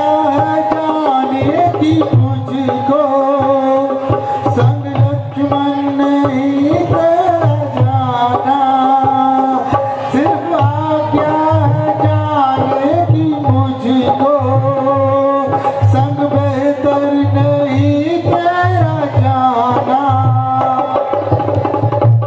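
Live Indian folk-devotional music between sung lines: tabla keeping a steady beat under a sustained, gently bending melody on an instrument.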